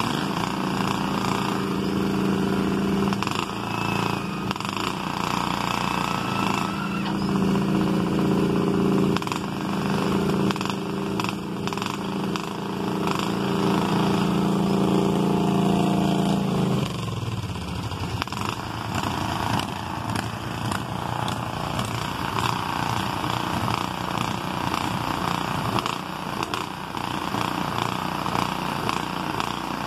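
Small garden tractor engines running in mud. One is held at steady high revs for the first half, then drops away about 17 seconds in and runs lower and unevenly.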